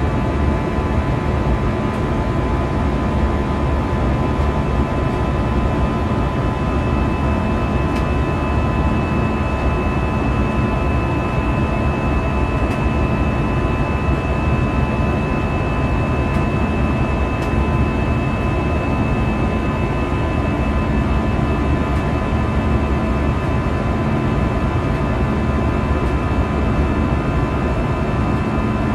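Airbus A320's CFM56-5B turbofan engines at climb thrust heard inside the cabin: a steady, loud rumble and rush with steady high tones over it, the fan's buzzsaw tone.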